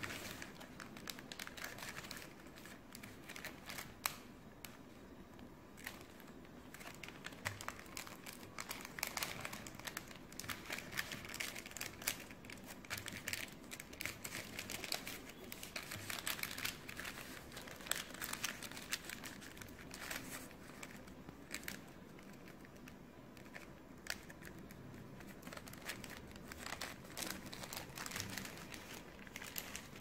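A sheet of A4 paper being folded and creased by hand for an origami model: irregular crinkling and rustling with small sharp crackles as the folds are pressed flat.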